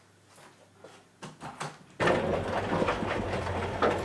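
A loud mechanical rattle of rapid clicks that starts suddenly about two seconds in and lasts about two seconds, after a few faint clicks.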